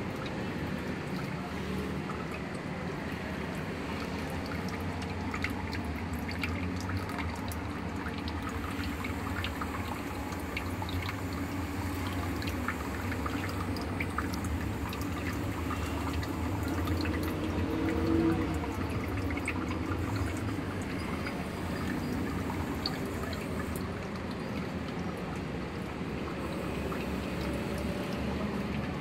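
Water from the outlet spout of a homemade aquarium filter pouring steadily back into a plastic-tub goldfish tank, with small drips and splashes, over a low steady hum.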